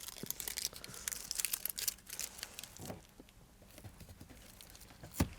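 Self-adhesive anti-squeak foam tape being handled: crackly tearing and crinkling of the tape and its backing film, dense for the first two seconds and then scattered. A single sharp knock comes about five seconds in.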